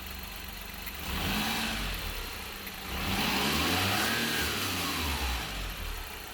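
An 18-year-old car's engine, with a cable-operated throttle, revved from idle twice: a short rev about a second in, then a longer one about three seconds in whose pitch rises and falls back to idle.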